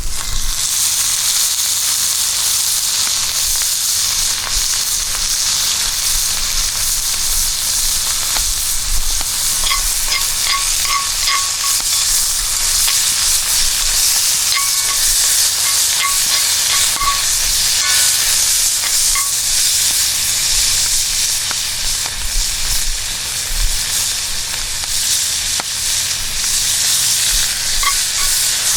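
Food frying in hot oil: a loud, steady sizzle.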